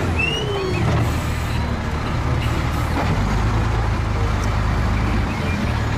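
Wheel loader's diesel engine running steadily, a loud low hum under a dense mechanical noise, with a few faint whistling glides.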